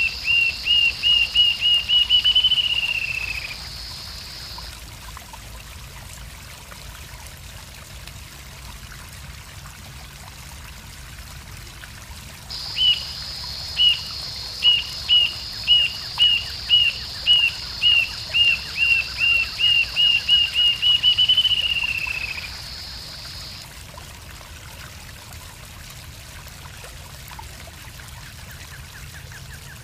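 Rufous-tailed jacamar singing: a series of high, thin notes that speed up and climb slightly, then slide down into a short falling trill. One phrase ends a few seconds in, and a longer phrase of about ten seconds comes near the middle. A steady high hiss accompanies each phrase.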